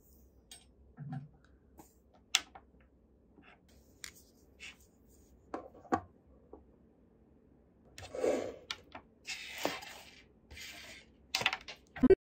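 Small plastic USB wall chargers and a coiled charging cable being handled on a tabletop: scattered light clicks and taps of plastic, a few seconds of rubbing and rustling about two-thirds in, and a sharp knock near the end.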